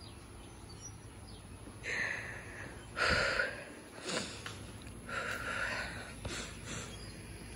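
A person sniffling and breathing in short, uneven breaths several times while tearful, the loudest sniff about three seconds in.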